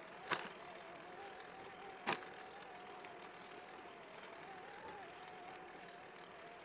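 Custom tadpole recumbent trike in motion on a concrete path: a steady, slightly wavering whine over rolling noise. Two sharp knocks come in the first couple of seconds, about two seconds apart.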